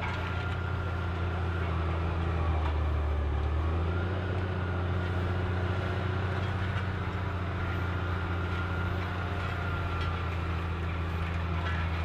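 Large farm tractor's diesel engine running under load as it pulls a cultivator through the soil: a steady low drone, slightly fuller and deeper about two to four seconds in.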